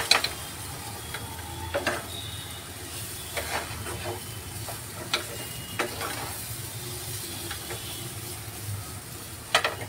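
Wooden spatula scraping and knocking against a frying pan as a moist corn and vegetable filling is stirred, with short strokes every second or two over a soft, steady sizzle from the low flame.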